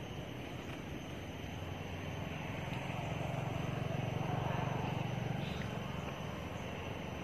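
A passing engine's low hum, swelling to its loudest around the middle and then easing off, over a steady outdoor background.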